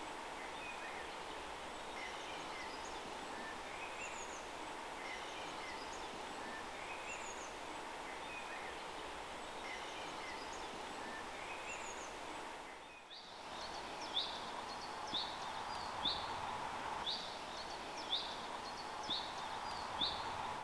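Small birds singing outdoors: scattered short chirps and trills, then, after a brief break in the sound about two-thirds of the way through, one bird repeating a sharp high note about once a second, over a steady background hiss.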